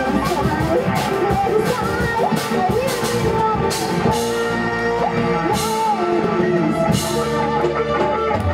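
Live dangdut orkes melayu band playing: a woman sings a wavering melody into a microphone over electric guitars, bass, keyboard and a drum kit keeping a steady beat.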